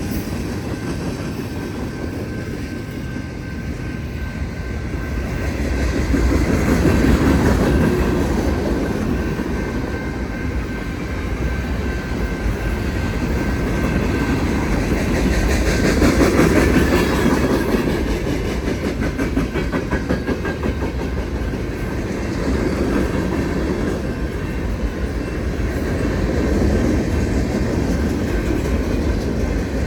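Union Pacific manifest freight train rolling past, its wheels clacking over the rail joints in a continuous rumble. The rumble swells twice.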